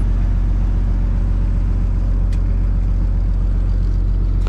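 Peterbilt 579's Cummins diesel engine running at a steady raised idle during an active forced DPF regeneration, a deep even rumble heard from inside the closed cab. One faint click about two seconds in.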